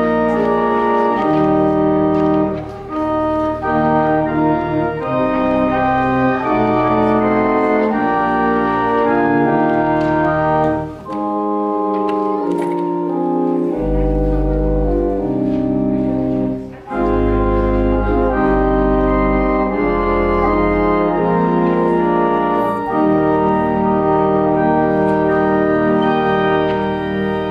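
Pipe organ playing slow, sustained chords over deep pedal bass notes. The music breaks off briefly between phrases three times.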